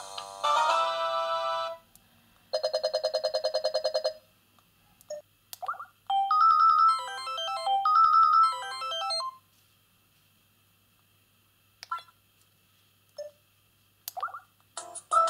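Samsung SGH-Z130 mobile phone playing its built-in ringtones one after another: a tune ends, a fast-pulsing ring tone of about ten pulses a second runs for a second and a half, then a short electronic melody plays. After a quiet stretch with a few brief chirps, a new tune starts near the end.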